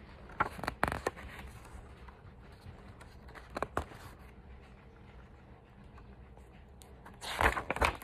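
Paper pages of a picture book rustling under a hand, with a few brief scrapes and a longer rustle of a page being turned near the end.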